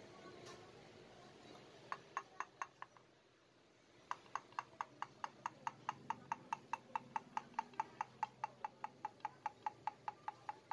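A steady series of sharp, faint clicks at about four a second, with a short break about three seconds in.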